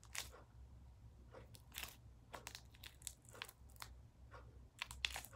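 Faint, irregular sticky crackles and clicks as gum-and-shaving-cream slime is pulled and peeled off fingers.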